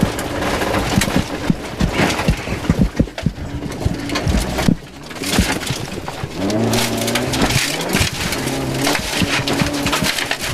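Gravel and stones rattling and clattering against the underside of a Rover 214 rally car, heard from inside the car. About five seconds in the engine note drops briefly, then its 1.4-litre K-series four-cylinder revs up twice with rising pitch as the car accelerates.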